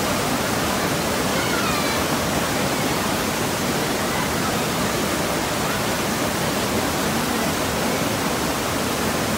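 River rapids: fast white water pouring over and around rocks, a steady loud rush with no change in level.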